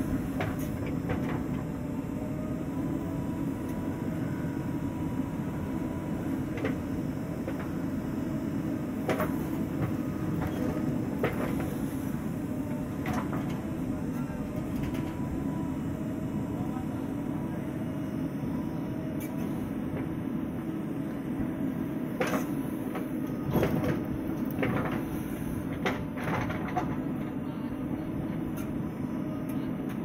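Diesel engine of a JCB 3DX backhoe loader running steadily under hydraulic load while the backhoe arm digs soil, with scattered knocks and clanks from the bucket and arm.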